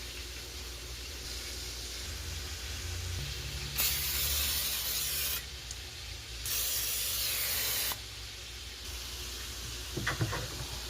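Aerosol cooking spray hissing in two bursts of about a second and a half each, starting and stopping sharply, a second apart.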